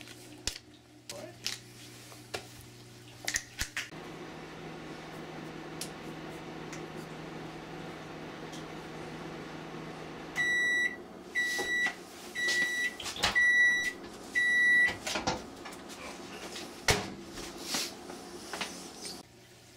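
Microwave oven running with a steady hum that starts about four seconds in. Near the middle it gives five beeps, about one a second, as the heating cycle ends. Sharp clicks and knocks come before and after.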